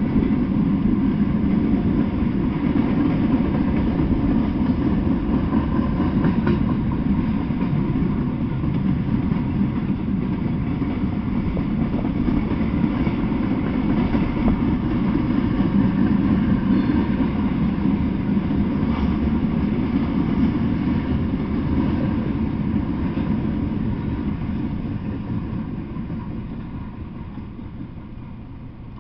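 Freight train of boxcars rolling past, a steady rumble of steel wheels on rail that fades over the last few seconds as the end of the train goes by.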